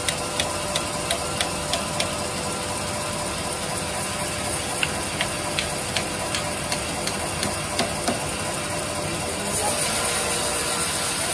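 Hammer striking wood, fixing a thin wooden strip to the end of a teak slab: quick taps about three a second at first, then slower, uneven ones. Underneath is the steady hum of running sawmill machinery, and a louder hiss sets in near the end.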